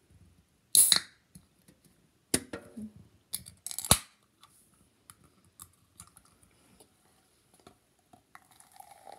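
Pull tab of a Coca-Cola can being worked open: a few sharp clicks and short hisses of escaping gas. The loudest come about a second in and about four seconds in, the second ending in a sharp crack as the seal breaks.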